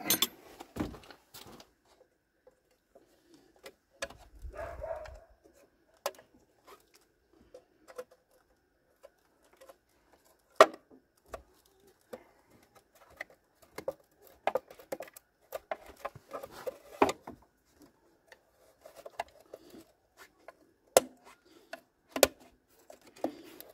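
Irregular sharp clicks and knocks of a screwdriver and hands working on the plastic engine cover of a Citroen C4 as it is unfastened. The loudest knock comes about ten seconds in, with a few more near the end.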